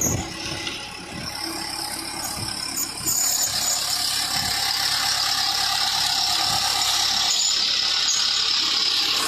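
Self-loading concrete mixer working, with a steady high-pitched squeal that sets in about three seconds in and holds over the machine's running noise.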